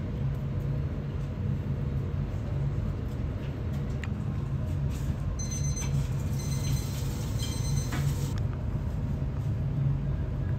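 Steady low rumble of restaurant room noise, with a few faint clicks and, in the middle, several short faint high-pitched tones.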